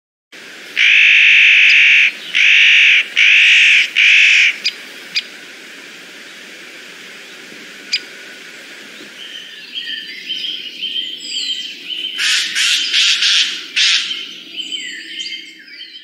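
Spotted nutcracker giving harsh, rasping calls: a run of four long calls in the first few seconds, then another burst about twelve seconds in, with thin chirps of other small birds behind them.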